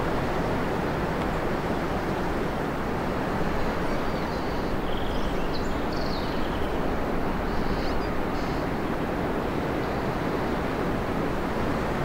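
Steady wind rushing through forest trees. A few faint, short bird chirps come through in the middle.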